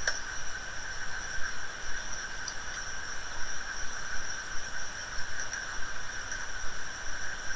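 A steady high-pitched electrical whine at two pitches over a faint hiss, with a faint click right at the start.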